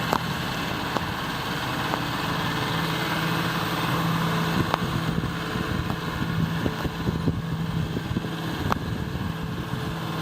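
John Deere 7930 tractor's six-cylinder diesel engine running steadily, with wind buffeting the microphone.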